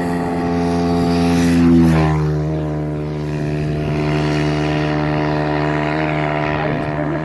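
Motorcycle riding past close by, loudest about two seconds in, its engine pitch dropping as it goes past, then running steadily at the lower pitch as it moves off.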